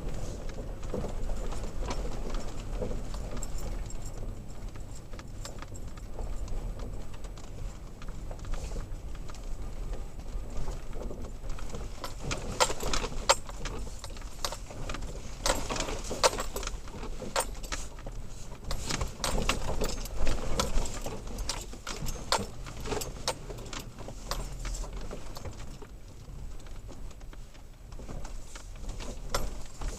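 Inside the cab of a third-generation Toyota Tacoma driving a rough off-road track: a steady low road and engine rumble, with frequent rattles and knocks from the truck and loose gear jolting over uneven ground. The knocks come thickest through the middle stretch.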